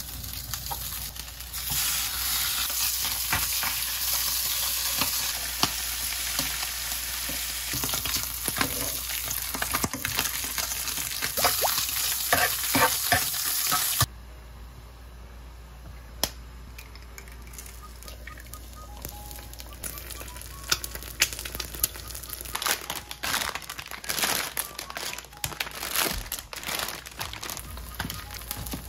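A slab of Spam sizzling and crackling in a hot non-stick frying pan, a loud, steady frying hiss that cuts off abruptly about halfway through. After that it is quieter, with scattered crackles and the crinkle of instant-noodle packets being handled.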